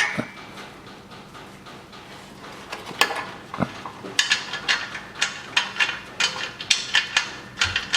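Ratchet wrench clicking in quick repeated strokes while loosening a bolt, about four clicks a second, after a single knock about three seconds in.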